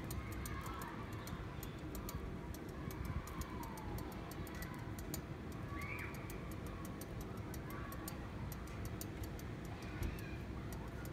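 Batter crackling and popping as it cooks in a hot metal pancake mould, a dense run of small sharp ticks over a low background rumble.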